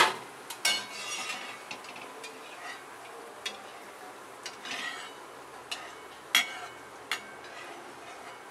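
Perforated steel skimmer knocking and scraping against an iron kadhai while lifting fried boondi out of hot oil. One sharp clank at the very start, then several lighter knocks and short scrapes.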